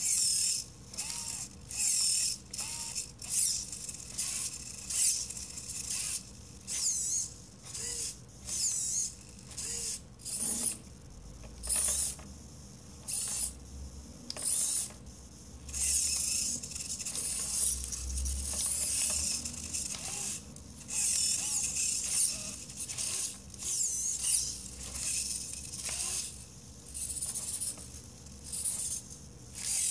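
Micro servo motors on a robotic hand whirring in many short bursts, roughly one a second, as they turn to pull the fingers in step with a flex-sensor glove.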